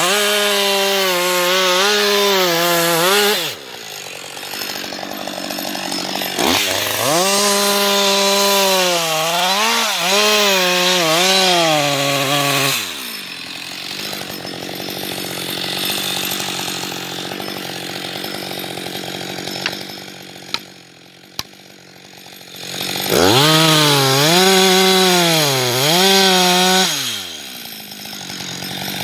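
Husqvarna 560XP two-stroke chainsaw cutting into a standing tree trunk at full throttle in three long spells, its pitch sagging and recovering as the chain bites into the wood. It drops much quieter between the cuts.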